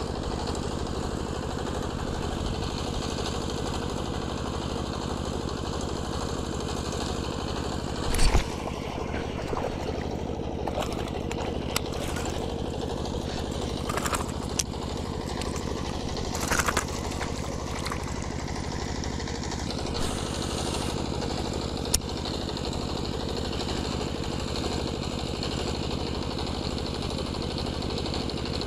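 A steady motor-like drone runs throughout, with a few sharp clicks and knocks from handling a baitcasting fishing reel, the loudest about eight seconds in.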